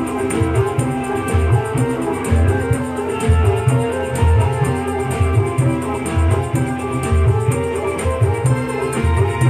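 Music with a plucked-string, guitar-like melody over a steady beat of low drum hits, about two a second.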